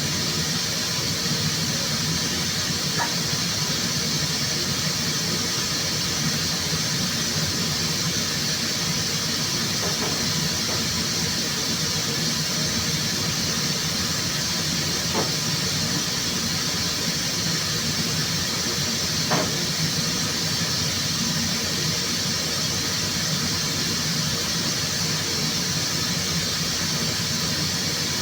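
Steady rushing air in a car paint shop: an even high hiss over a low hum, with a few faint ticks.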